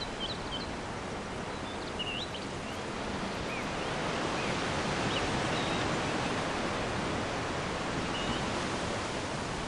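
Steady outdoor background noise, a soft even hiss, with a few faint, short high chirps of small birds near the start, about two seconds in and again near the end.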